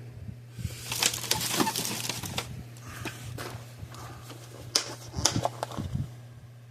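Rummaging through small parts on a workbench: irregular clicks, taps and rattles of handled plastic and metal bits, busiest near the start and again about five seconds in, over a steady low hum.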